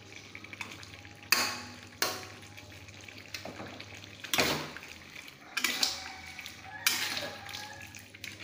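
Spatula stirring and scraping chunks of duck around a wok, making about six sudden scrapes and knocks at irregular intervals, over a faint sizzle of thick sauce being cooked down until nearly dry.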